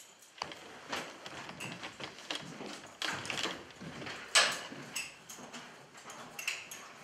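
Footsteps and rustling as two people walk, with scattered knocks and metal clicks and one sharp knock about four and a half seconds in.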